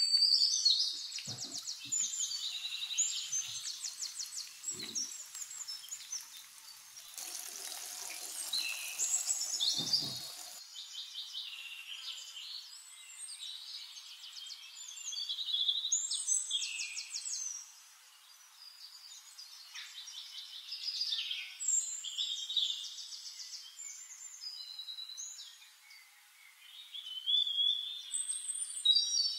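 Songbirds chirping and singing in a run of short whistled phrases and quick trills, coming and going throughout. A steady hiss joins them for a few seconds about a third of the way in.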